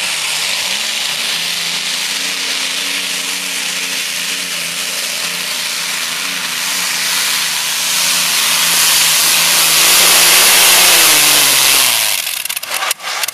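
Free-class pulling tractor's engine running at full power at a steady high pitch while pulling the weight sled, getting louder toward the end. About twelve seconds in the revs fall and the engine stops, followed by a run of sharp crackling pops.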